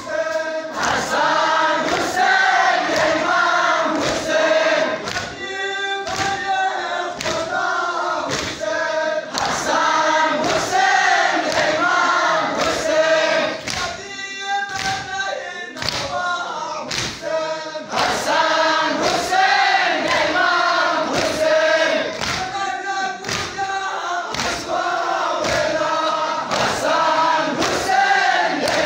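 A group of men chanting a Farsi noha in unison, with loud, regular thumps of hands beating on chests (matam) keeping time, about three beats every two seconds.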